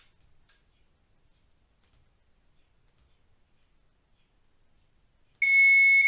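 Near silence, then about five seconds in a fire alarm receiver panel starts a loud, steady, high electronic alarm tone: the photoelectric smoke detector under test has tripped and the receiver has gone into fire alarm.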